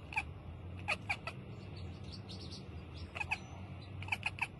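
Domestic cat chattering: short runs of rapid staccato clicks and chirps in a few separate bursts. This is the 'ekekek' sound cats make when they watch prey such as a bird or insect that they cannot reach.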